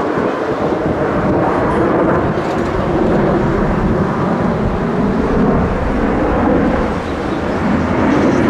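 Steady, rumbling roar of a formation of four Blue Angels F/A-18 Super Hornet jets flying at a distance.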